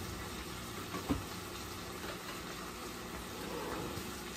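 Steady cooking noise from a pot of chicken stew on the stove, with a light knock about a second in.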